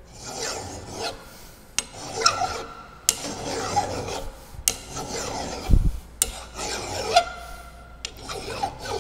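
Hand file rasping across a 1-inch bar of 1018 mild steel in a vise, in repeated strokes of about a second each, with sharp clicks between strokes and a single dull thump about halfway through. The teeth are biting into the soft, unhardened steel.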